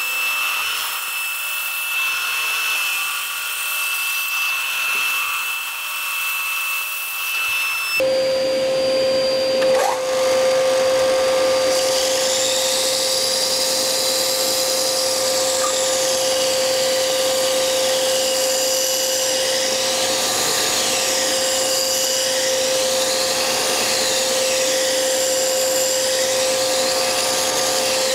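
Axminster AW1950B bandsaw running while a pine block is cut to shape. About eight seconds in the sound changes abruptly to an Axminster AW200BDS belt and disc sander running with a steady hum, the wood's curved ends pressed against its moving belt.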